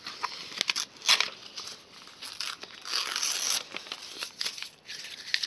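A sheet of paper being torn into slips and crumpled by hand: a run of sharp rips and crinkles, the longest stretch about three seconds in.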